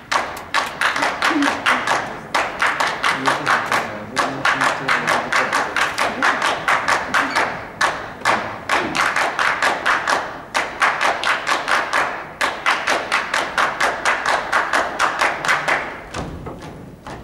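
Sharp, fast rhythmic hand-clapping in unison by the ballet's stage dancers, about five claps a second, in phrases broken by short pauses, stopping near the end.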